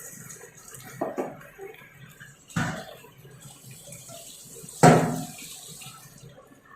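Portions of chicken pakora batter dropped into hot oil in a kadai: three sudden splashes a second or two apart, the last the loudest, with the oil sizzling around them.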